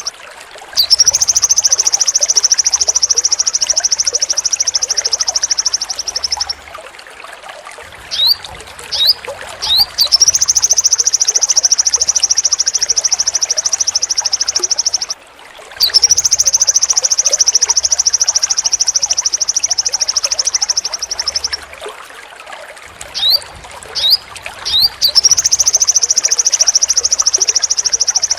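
Sogon bird singing: long, sharp rasping trills (besetan) of five to six seconds each, high-pitched and rapidly pulsed, broken by short bursts of three or four quick upslurred chips, the pattern repeating.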